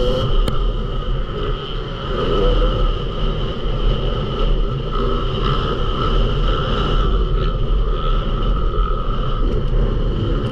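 Yamaha YZ250 motocross bike's engine running under way on a dirt track, rising and falling in pitch with the throttle, heard from the rider's camera over heavy wind rumble.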